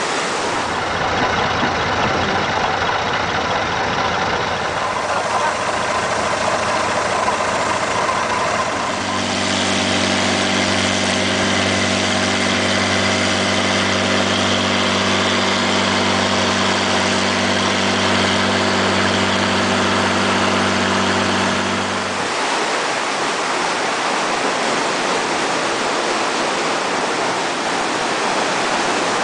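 Rushing surf and wind, then about nine seconds in a boat's engine takes over, running at a steady, unchanging drone. The engine cuts off after about thirteen seconds, leaving the wash of waves breaking on rocks.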